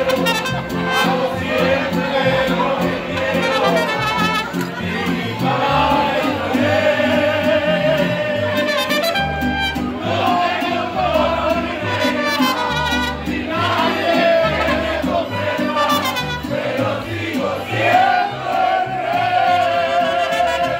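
Mariachi band playing live: strummed guitars and a violin over a deep bass line that steps from note to note, with a melody that slides and bends above.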